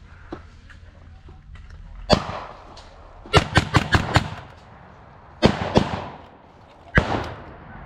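Blank gunfire from WWII-era small arms: a single shot about two seconds in, then a rapid string of about six shots, two more shots, and a last shot near the end.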